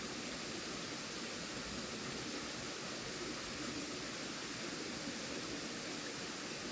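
Steady, even hiss of a quiet night-time campsite ambience, with no distinct sounds standing out.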